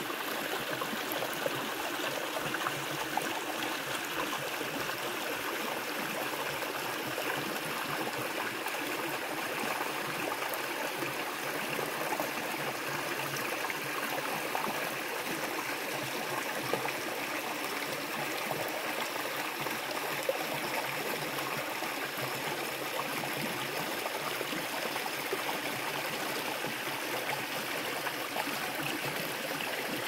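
Small forest stream running over rocks and a sloping rock slab: a steady babbling and trickling of shallow water.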